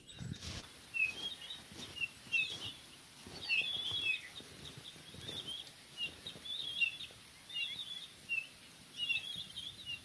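Small forest songbirds giving short, high chirping calls, many times over, with faint low thuds underneath.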